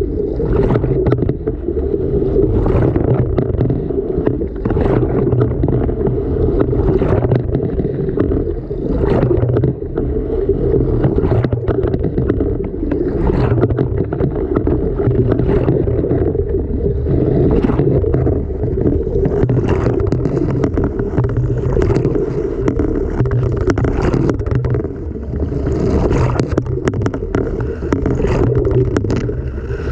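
Washing machine heard from inside its drum: water sloshing as the load tumbles, over a steady low motor hum, with sharp knocks every second or two.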